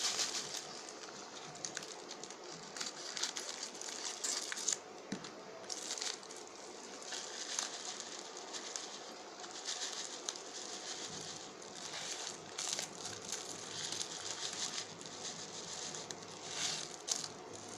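Foil spice packet crinkling and rustling in the hands as pickle masala powder is shaken out of it, in irregular crackles throughout.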